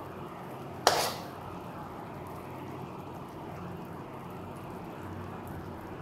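Sugar syrup simmering in an aluminium kadai at one-string consistency, a steady bubbling, with one sharp metallic clink about a second in as a steel spoon knocks against the pan.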